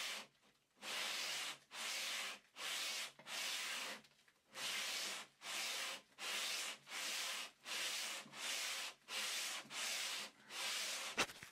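A 12-inch radius sanding block with 120-grit paper rubbed back and forth along an ebony guitar fretboard, sanding in its radius. There are about thirteen even strokes, roughly three every two seconds, with one short pause a little before the middle, and a light click near the end.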